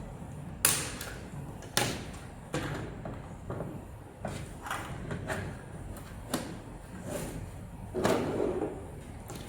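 Sharp clicks and knocks of track-light track sections and an I-shaped conductive connector being handled and fitted together, about ten separate knocks, the loudest a bit under a second in, with a short rustle near the end.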